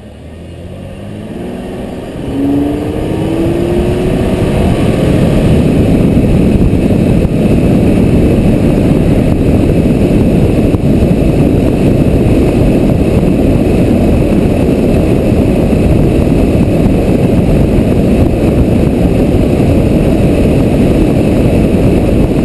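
Car driving: the engine note rises as it picks up speed over the first few seconds, then a steady, loud rush of road noise while cruising.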